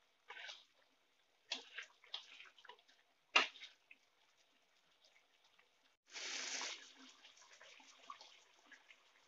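Chicken simmering in sauce in a wok, stirred with a plastic spatula: a few short scrapes and knocks of the utensil against the pan, one sharp knock near the middle. About six seconds in comes a short hiss, then a faint bubbling of the simmering sauce.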